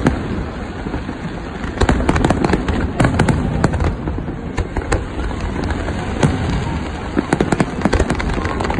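Fireworks display: aerial shells bursting and crackling over a continuous low rumble. Clusters of rapid sharp cracks come about two seconds in, around three seconds in, and again near the end.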